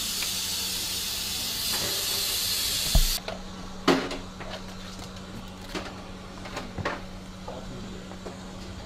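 A steady hiss cuts off suddenly about three seconds in, just after a sharp thump. A knock and a few light clicks follow over a low steady hum.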